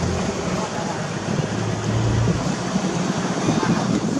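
Off-road vehicle's engine running as it drives along a flooded sandy track, with tyres splashing and hissing through shallow water.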